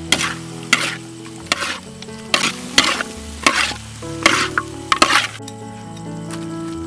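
Metal spatula scraping and tossing octopus and vegetables in a steel wok over sizzling frying: repeated scrapes under a second apart, stopping about five seconds in. Soft music runs underneath.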